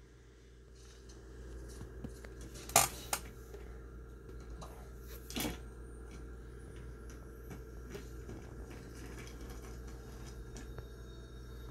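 Small hard objects clinking: two sharp clinks close together about three seconds in, and one more a couple of seconds later, over a steady low hum.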